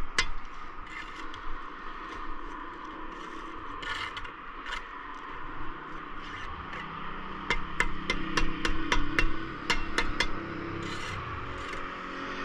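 Steel brick trowel working on a brick wall: scraping mortar and tapping bricks down into their bed, with a run of quick sharp taps, about four a second, from about seven to ten seconds in. A steady hum comes in near the end.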